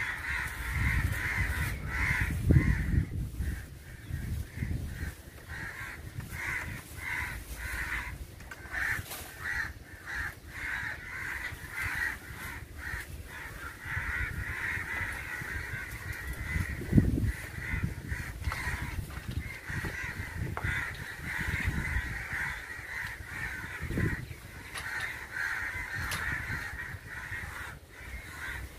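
Several crows cawing over and over in quick, harsh calls: the alarm calls of crows mobbing people who are near their sick young crow.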